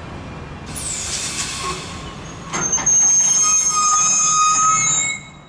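Freight train wagons rolling past with their steel wheels screeching on the rails: a hissing screech about a second in, then from about two and a half seconds a loud squeal on several steady high pitches that cuts off suddenly near the end.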